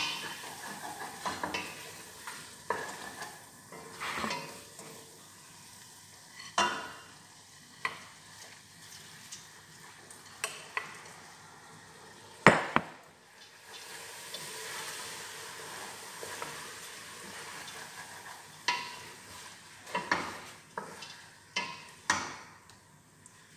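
Spoon stirring food frying in a stainless steel pot: irregular clinks and scrapes of the utensil against the pot over a light sizzle, with one sharp knock about halfway through.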